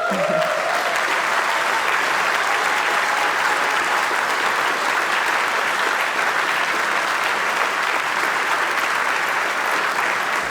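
Large congregation applauding steadily in a hall, a dense even clapping that holds throughout.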